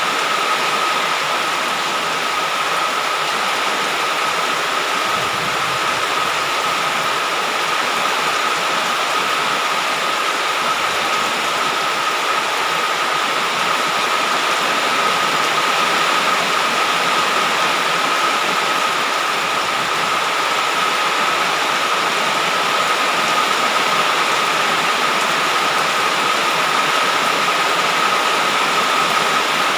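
Heavy rain falling in a steady downpour, an even hiss without breaks. A thin, steady high tone runs through it.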